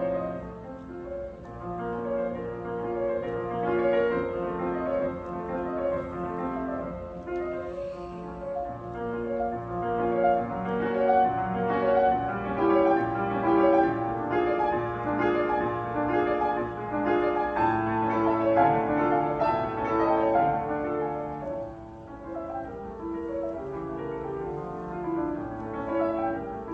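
Solo piano playing a fast, continuous stream of notes. It grows softer about 22 seconds in.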